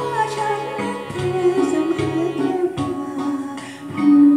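Karaoke backing music of a Thai luk thung song, with a melody over a steady repeating bass beat.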